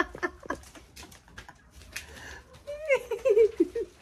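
Chickens clucking, with a short rising squawk about three seconds in that runs into a string of clucks. A few light knocks sound in the first second.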